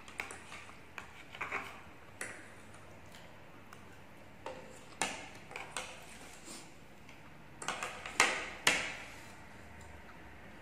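Metal forks and spoons clinking and scraping against a plate and a tray as food is served and eaten, in scattered sharp clicks, with the loudest clinks about eight seconds in.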